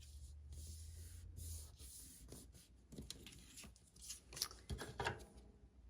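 Faint scratchy rubbing and light paper handling: the tip of a liquid glue bottle drawn in thin lines along cardstock, with a few louder rubs about four to five seconds in.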